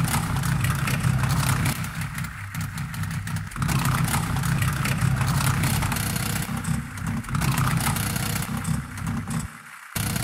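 A steady mechanical drone: a low hum with hiss over it, swelling and dipping in waves, which drops away briefly near the end.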